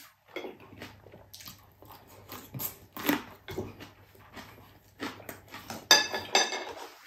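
Close-up chewing and lip-smacking of someone eating chewy beef tripe, a string of wet clicks and smacks. Near the six-second mark comes the loudest sound, a sharp smack or clink with a brief ringing.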